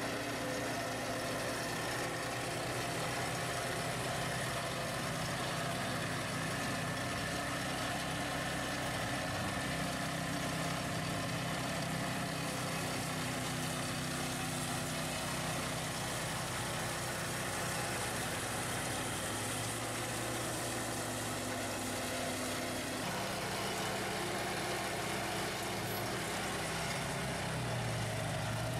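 A front-mounted RAMMY ATV mower's own small petrol engine and the quad bike's engine running steadily together while cutting tall grass. The engine note shifts lower about three-quarters of the way through.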